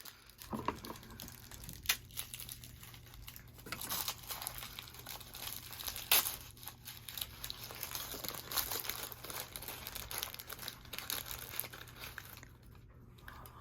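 Plastic toy packaging being crinkled and torn open by hand, with irregular crackles and small clicks that die away near the end.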